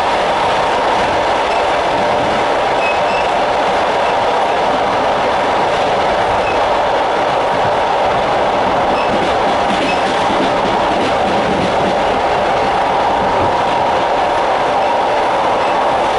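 Passenger train running at speed, heard from aboard: a loud, steady rolling noise of wheels on rail that holds even.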